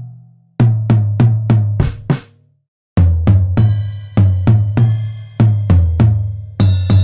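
Drum kit hits, drums and cymbals struck by launched balls, cut together into a beat: a quick run of about six low tom hits, a short pause, then a steady beat of hits about every half second with cymbal crashes on some of them.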